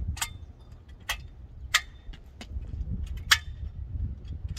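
Hinge locks of an aluminium multi-purpose folding ladder clicking as a section is unlocked, folded and locked into the work-platform position: about five sharp metallic clicks roughly a second apart, over low wind rumble on the microphone.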